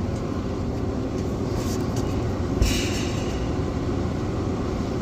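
A steady low rumble throughout, with a scrape and a single sharp metallic knock about two and a half seconds in as the fan blade hub is worked onto the new fan motor's shaft.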